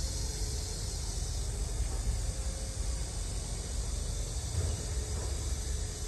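Steady outdoor background noise: a low, fluttering rumble under an even high hiss, with no distinct event.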